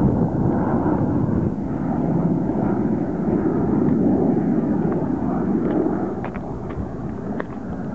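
Aircraft engines heard from the ground as a plane flies past at a distance: a steady low rumble.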